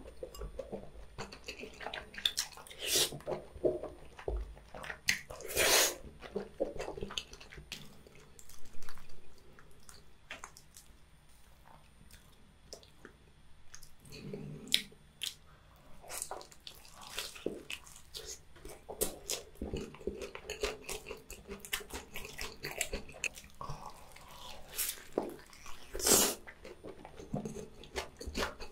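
Close-miked wet chewing and smacking of sauce-coated Korean rice cakes (tteokbokki), then, from about halfway on, biting into and chewing a sauced fried chicken leg. A string of short, sharp mouth sounds with a quieter stretch in the middle.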